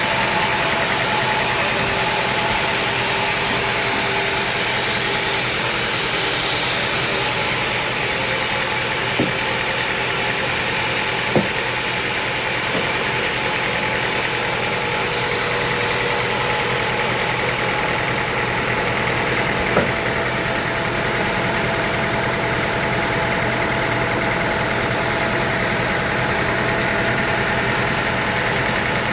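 Sawmill machinery running steadily, a constant engine-like hum with a few steady tones, broken by three brief sharp knocks.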